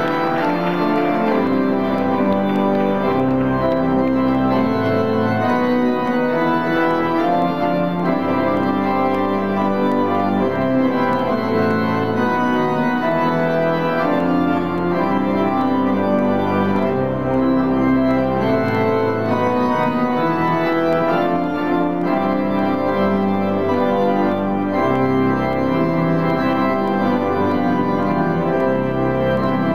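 Church organ playing the wedding recessional in sustained, full chords at a steady level.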